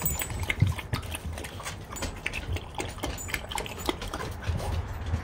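Dog noises from a French bulldog playing at a bite sleeve, with scattered knocks and scuffs.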